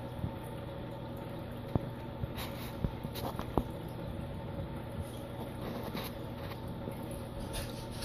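Steady mechanical hum of aquarium pumps, with a few sharp clicks scattered through the first half.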